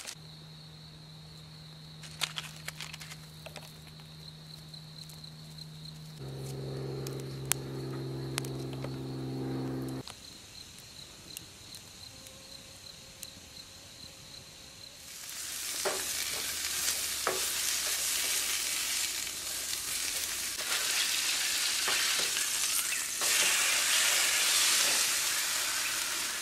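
Food sizzling in a frying pan on a propane camp stove, a dense steady hiss that starts about halfway through and is the loudest sound. Before it, a quieter stretch with faint scattered crackles from a small twig-and-pine-cone campfire just catching, a steady high insect trill, and a low steady hum.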